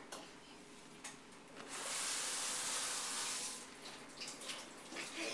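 Water running for about two seconds, a steady hiss that starts and stops abruptly, with faint small knocks before and after.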